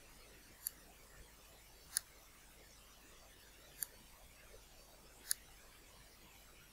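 Computer mouse button clicking four times, single sharp clicks spaced a second or two apart, over a faint steady background hiss.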